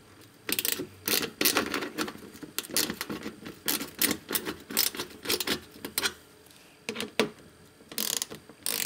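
Socket ratchet wrench clicking in quick runs of strokes as bolts are backed out, with a short pause about six seconds in.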